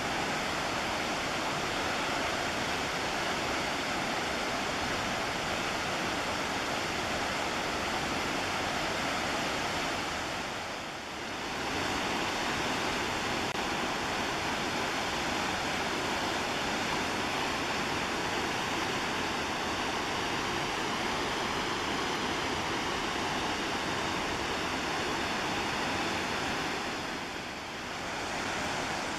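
Steady roar of the McKenzie River's rushing whitewater. The level dips briefly about eleven seconds in and again near the end.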